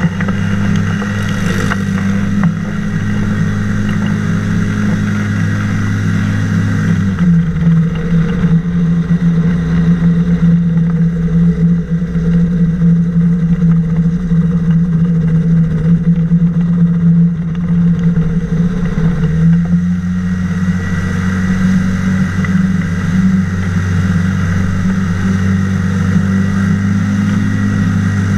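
Pusher engine and propeller of a flying boat running steadily as it skims across the water. The engine note changes about seven seconds in and changes back about nineteen seconds in, as the throttle is eased and opened again.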